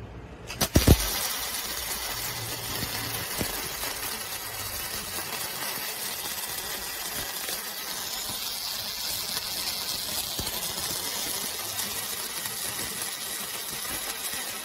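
MIG welding arc from an inverter semi-automatic welder, run without shielding gas, laying wire onto a steel bar. It starts with a sharp click about a second in, then keeps up a steady sizzling hiss.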